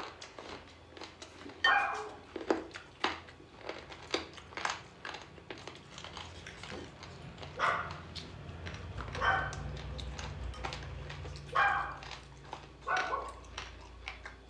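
An animal's short, sharp calls, repeated at irregular gaps of one to two seconds. A low hum comes in about halfway through and fades before the end.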